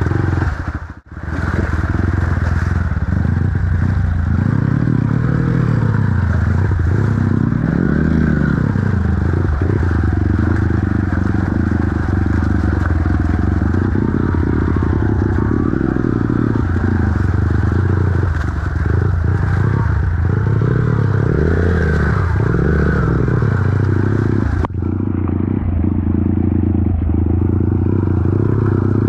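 Honda CRF dirt bike's single-cylinder four-stroke engine running under changing throttle as the bike rides up a shallow stream, with water splashing and rocks clattering under the tyres. The sound drops out briefly about a second in.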